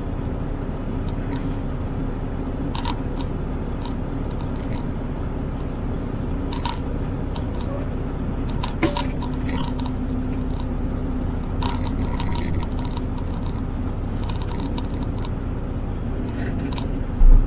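Mack truck's MP8 inline-six diesel engine running steadily at low speed, heard from inside the cab as the truck rolls slowly in reverse. Scattered light clicks and rattles, and one low thump near the end.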